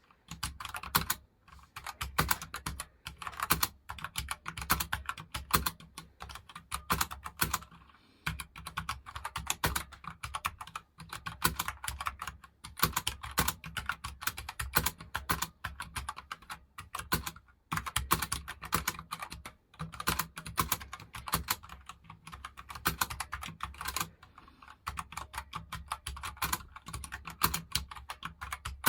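Continuous fast typing on a very light gaming keyboard: keys clicking in quick runs, broken by a few brief pauses.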